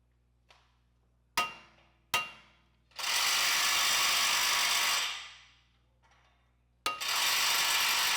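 An impact gun hammering in two bursts, one of about two seconds and one shorter near the end, as it works a rotor-retaining Phillips screw that is starting to strip. A few sharp metallic knocks ring out before the first burst.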